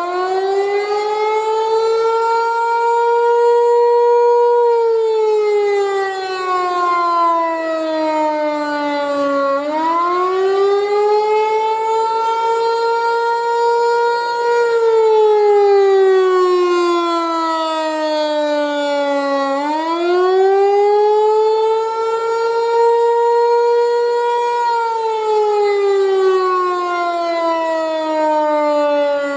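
Federal Signal Equinox rotating chopper outdoor warning siren sounding its attack signal during a test. It gives a loud, buzzy wail that climbs in pitch, holds briefly, then slides down, about every ten seconds.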